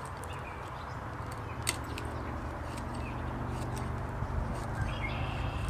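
Short scraping strokes of a wooden stick shaved against the edge of a Survive! Knives GSO-10 blade, raising curls of wood, over a steady low hum; a bird chirps near the end.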